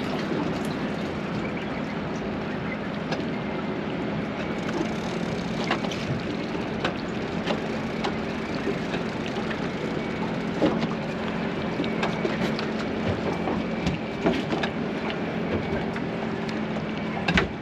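Boat engine running steadily, with water and wind noise and scattered short clicks and knocks from gear on deck.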